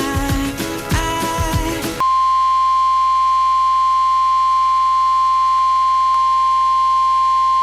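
Music with a drum beat for about two seconds, then cut off abruptly by a steady, loud single-pitch alarm tone: the NOAA Weather Radio 1050 Hz warning alarm tone, which announces a warning broadcast.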